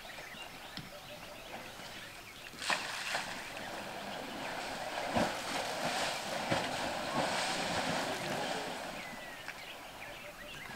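African elephants wallowing in wet mud: squelching, sloshing and a few sharp wet slaps. The wet churning swells in the middle and fades near the end.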